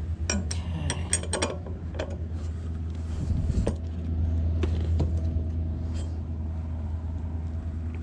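Sharp metal clicks and clinks of a socket wrench tightening the bolt of a bicycle saddle's seat-post clamp, bunched together in the first two seconds, with a few more spread out later. A steady low hum runs underneath.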